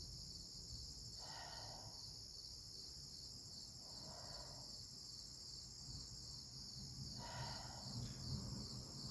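Faint, steady chorus of crickets trilling high-pitched, with a fine pulsing texture.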